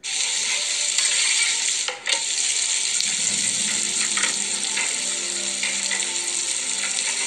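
Sizzling of bread frying in a non-stick frying pan: a steady hiss that starts abruptly and breaks off briefly about two seconds in.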